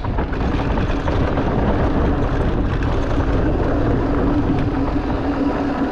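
Electric mountain bike being ridden on a dirt trail: a rumble of tyres and rattling bike with wind buffeting the helmet or chest camera, and a steady hum underneath.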